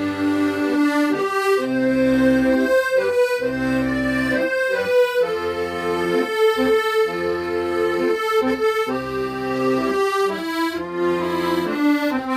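Accordion playing a slow melody in long held notes over sustained low bass-and-chord notes.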